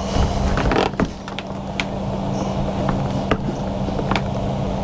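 Sharp knocks and creaks from an old Norcold 1200 RV absorption refrigerator being rocked and pulled out of its wall cabinet, over a steady low hum.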